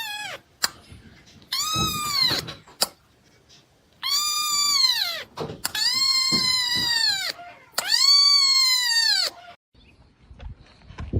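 A cat meowing loudly over and over: about four long drawn-out cries, each rising and then falling in pitch.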